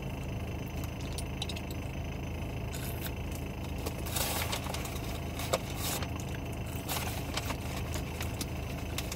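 Steady low hum of a car idling, heard inside the cabin, with scattered clicks and short crinkling noises from handling a food packet, busiest about four to seven seconds in.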